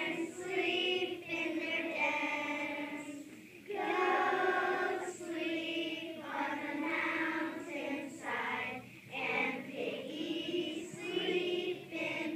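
A group of children singing together as a choir, in phrases of held notes with short breaks between them.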